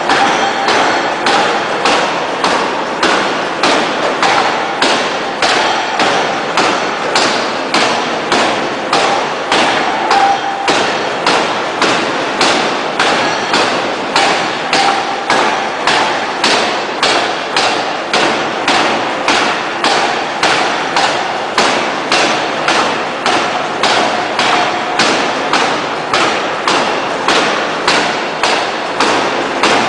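Electro-hydraulic open-die forging hammer striking a red-hot steel shaft in a steady run of heavy blows, a little under two a second, each with a metallic ring.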